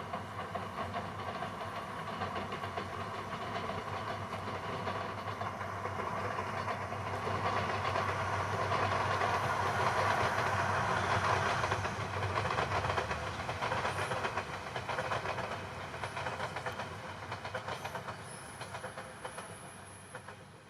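Seven Stars in Kyushu train passing on the rails. It grows louder to a peak about halfway through, then fades away.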